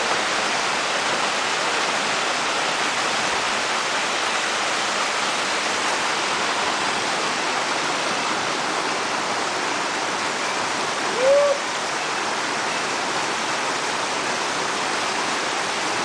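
Steady rushing of a waterfall and a rocky mountain stream, water cascading and splashing over stones. About eleven seconds in, a brief pitched sound rises and falls over the water noise.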